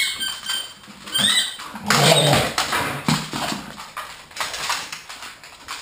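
Dogs moving about on a hardwood floor: claws clicking and pattering, with a few short, high, rising squeaks and a louder rustling burst about two seconds in.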